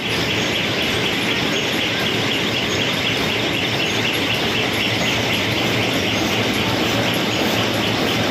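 Jain H100 New automatic high-speed paper cup making machine running, a steady, fast, rhythmic mechanical clatter.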